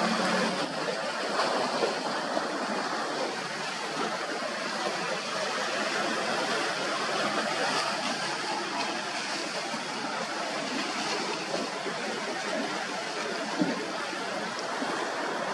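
Steady rush of churning seawater, waves and wakes splashing, with one short sharp tap near the end.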